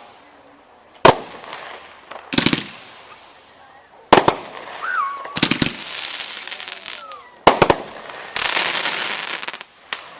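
A 50-shot consumer 1.4-grade firework cake firing. Sharp reports come every one to two seconds, and in the second half there are two longer bursts of dense crackling.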